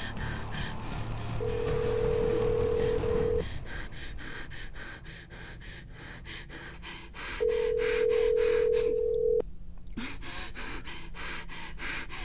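Telephone ringback tone of an outgoing call that is ringing at the other end, unanswered. There are two rings, each a steady tone about two seconds long, about four seconds apart.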